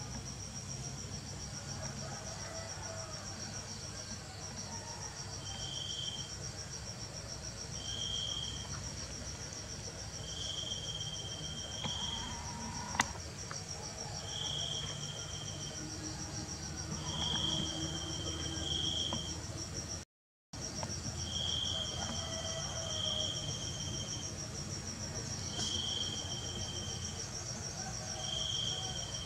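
Insects chirping, crickets by the sound: a continuous rapid high trill, with a lower chirp that comes and goes every couple of seconds. A single sharp click sounds about halfway through.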